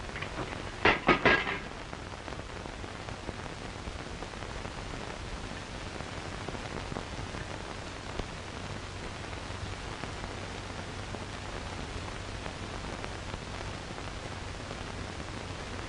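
Steady hiss and crackle of a worn early-sound-film optical soundtrack, with a short, loud vocal outburst about a second in.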